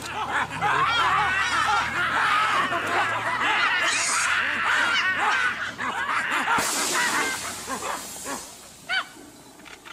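Baboons screaming and barking in rapid, overlapping distress and alarm calls. The calls thin out after about eight seconds, with one more sharp call near the end.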